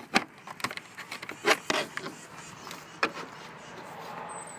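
Scattered clicks and knocks of plastic side-mirror housing parts and a wiring plug being handled and pushed into place by hand.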